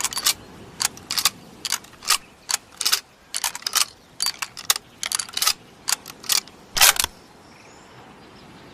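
Lee-Metford bolt-action rifle's action being worked: an irregular series of sharp metallic clicks and clacks, the loudest near the end, stopping about seven seconds in.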